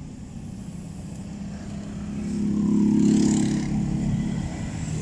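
A motor vehicle passing on the road over a low steady rumble of traffic, its engine growing louder to a peak about three seconds in, then fading.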